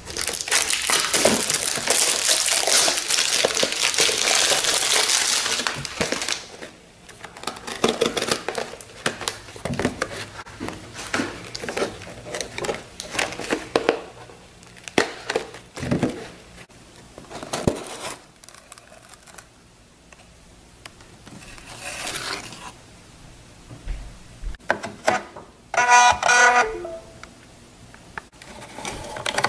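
Plastic wrap being torn and crinkled off a box of 3.5-inch floppy disks for about the first six seconds, then scattered clicks and rustles as the box and diskettes are handled. Near the end, a brief buzzing whir with a few steady tones.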